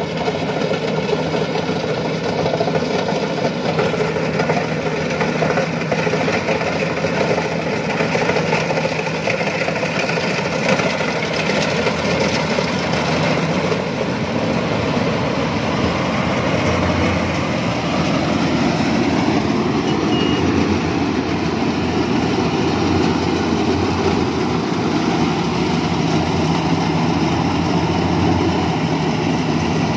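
Iseki rice combine harvester's engine and harvesting machinery running steadily under load, a continuous drone with a change in tone about two-thirds of the way through.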